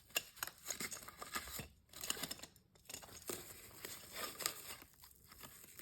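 Packaging crinkling and tearing in irregular rustles and crackles, with a few sharper clicks, as the faucet's nozzle is unwrapped.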